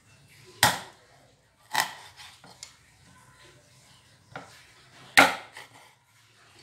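A knife or cleaver chopping on a wooden cutting board: a few sharp, irregularly spaced chops, the loudest about five seconds in.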